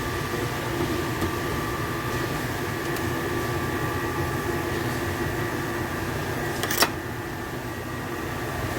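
A steady mechanical hum holding a few constant tones, with a single sharp knock about seven seconds in.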